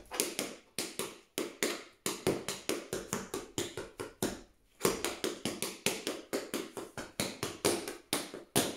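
Tap shoes striking the floor in quick rhythmic runs of taps as a tap time step is danced, with a short pause about halfway through.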